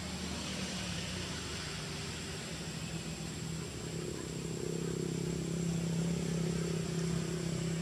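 A steady low engine hum with a hiss over it, growing louder in the second half and cutting off suddenly at the end.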